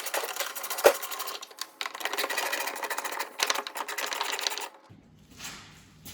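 A battery-powered tool running in fast, even pulses as it backs out the fan shroud's fasteners, in two runs with a short break between, a sharp click just under a second in, and a quieter stretch near the end.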